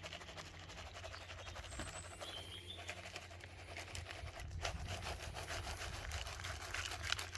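Soil being handled and scraped in a garden tub: a steady crackly rustle. Two short bird chirps about two seconds in.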